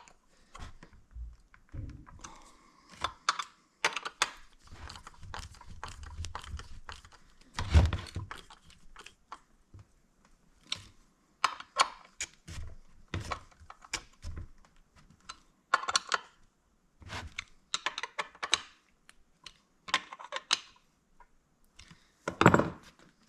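Torx bolts on a chainsaw muffler being tightened down by hand with a driver: a string of irregular small clicks and scrapes of metal tool on bolt heads, with one louder knock about eight seconds in.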